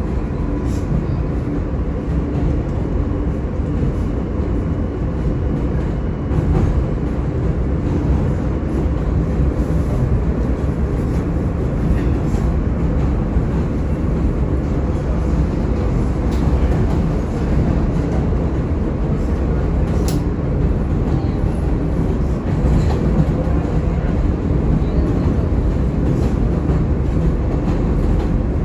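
R160A New York subway car running between stations, heard from inside the car: a steady, loud rumble of wheels on the rails with a faint motor hum underneath. A few sharp clicks and knocks from the track come through at irregular intervals.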